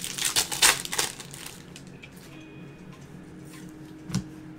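Crinkling and rustling of trading-card pack wrappers and cards being handled, densest in the first second, then quieter, with a single sharp tap near the end.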